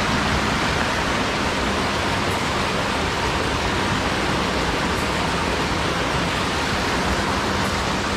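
Rushing water of a mountain headwater stream, a steady, even rush with no breaks.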